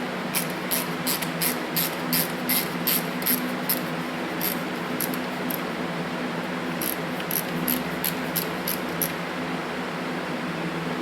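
Screwdriver clicking in even runs of about three clicks a second while the screws of a Zenith carburetor's throttle plate are backed out. There is one run over the first few seconds, a few scattered clicks in the middle, and a second run later on, over a steady low hum.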